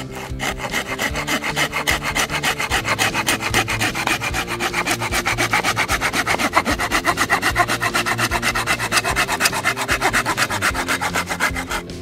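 Silky Pocketboy 130 mm folding pruning saw with a straight blade cutting through a piece of firewood, in quick, even back-and-forth strokes that stop just before the end. The short blade needs many strokes to get through.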